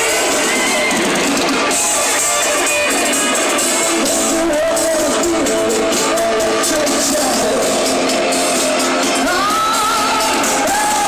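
Live pop-rock concert music in a stadium: a woman singing over a band with electric guitar, heard from far back in the crowd. Loud and steady, with almost no bass.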